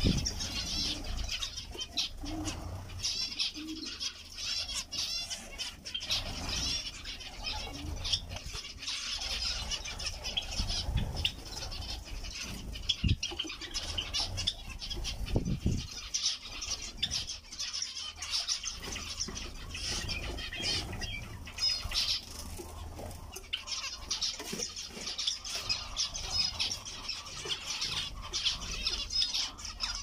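A flock of zebra finches calling non-stop, many short high call notes overlapping in a constant chatter, with a few soft low thumps.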